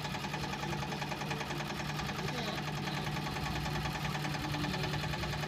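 Yanmar TS single-cylinder diesel engine powering a Hiab 140 crane, running steadily with a fast, even knock.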